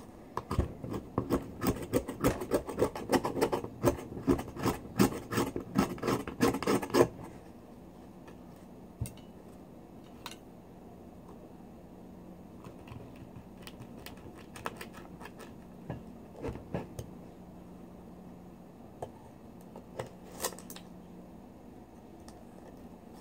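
Kitchen-knife blade scraping and clicking against the shell of a large pearl oyster as it is worked into the gap to pry the shell open. Rapid scraping strokes come for about the first seven seconds, then only occasional clicks, over a faint steady hum.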